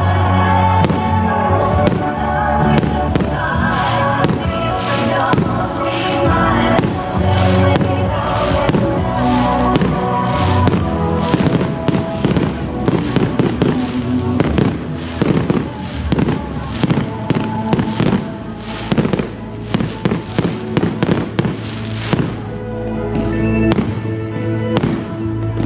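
Fireworks bursting and crackling overhead, with music playing underneath. The bangs and crackles come thickest through the middle and thin out near the end.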